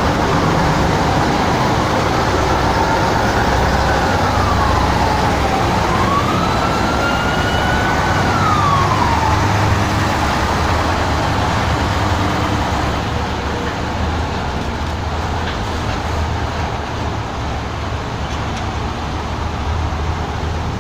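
Emergency-vehicle siren sounding in slow rising and falling sweeps over the steady rumble of heavy vehicles in a passing convoy. The siren stops about halfway through, leaving the engine and traffic noise.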